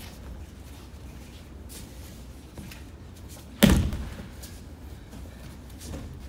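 One heavy thud about three and a half seconds in: an aikido partner's body hitting the tatami mat as he is brought down face-first. Faint light taps and shuffles on the mat come before and after it.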